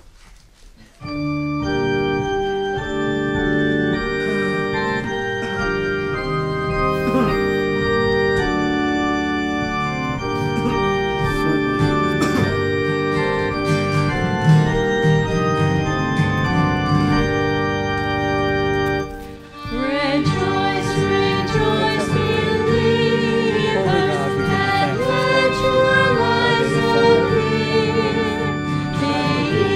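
Church organ playing the introduction to a hymn; after a short break about two-thirds of the way through, the congregation starts singing the hymn with the organ.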